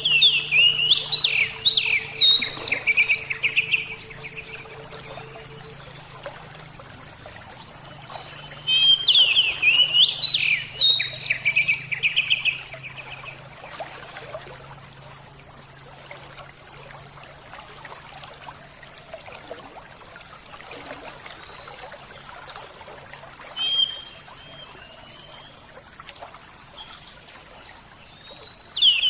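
A songbird singing phrases of rapid, high chirping and sweeping notes in three bursts, with quieter background between them.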